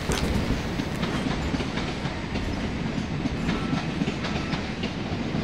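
Train running alongside a railway platform: a steady low rumble with repeated sharp clicks from the wheels over the track.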